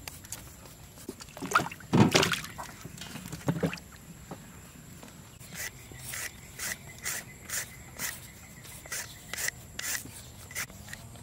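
A hand vegetable peeler scraping the skin off a raw sweet potato in short, quick strokes, about two a second, through the second half. A louder rustling clatter comes about two seconds in.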